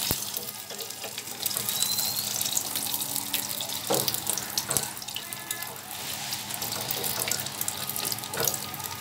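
An egg sizzling and crackling in hot oil in a small nonstick frying pan, with a spatula scraping and knocking against the pan a few times as the egg is folded and turned.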